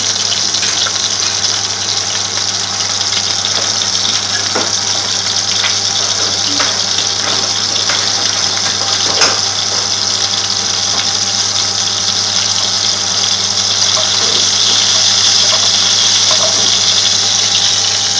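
Minced-meat shami kebab patties shallow-frying in hot oil: a steady, loud sizzle with scattered pops and crackles, over a low steady hum.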